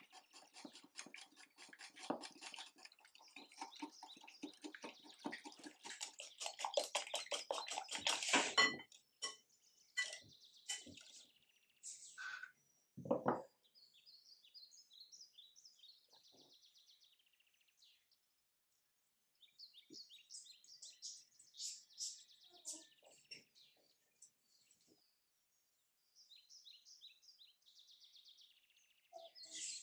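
A fast run of scraping or tapping strokes for about the first nine seconds, then a few sharp knocks. After that, small birds chirping in short repeated phrases.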